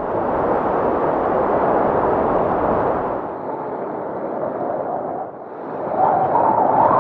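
A rushing, rumbling wind sound with no clear pitch and little top end, easing off in the middle and swelling again near the end.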